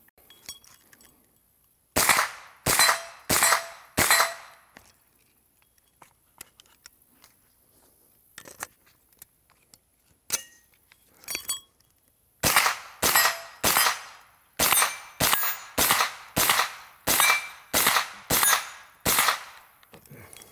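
Wilson Combat AR9-G 9mm carbine firing semi-automatically. Four shots come a little over half a second apart about two seconds in, followed by a few quieter clicks and clanks. Then comes a steady string of about a dozen shots at roughly two a second.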